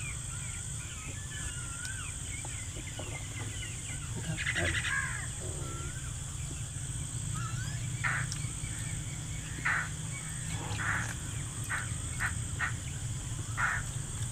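Birds calling: short whistled chirps in the first few seconds, a raspy call about four to five seconds in, then a run of short harsh calls through the second half, over a steady low hum.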